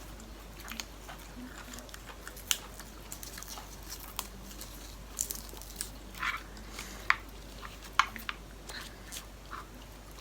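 A person chewing and biting into a mouthful of spicy seafood salad, with scattered crunches and sharp mouth clicks, the sharpest about two and a half, seven and eight seconds in.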